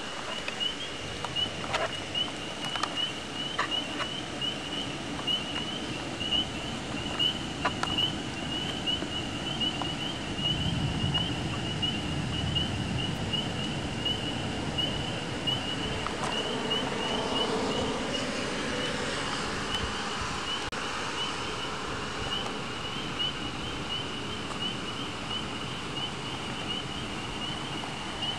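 Thunderstorm ambience: a low rumble of distant thunder swelling about ten seconds in, then a swell of rushing noise a few seconds later. A steady, pulsing high-pitched tone runs underneath throughout.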